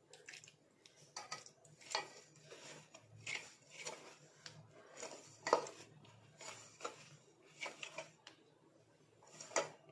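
Hand mixing flour and a little water into a stiff dough in a stainless steel bowl: quiet rubbing and scraping against the steel, broken by irregular light clinks, the sharpest about halfway through and near the end.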